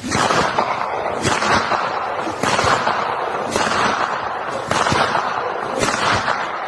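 Dense, rapid crackling bangs, with a louder bang about once a second.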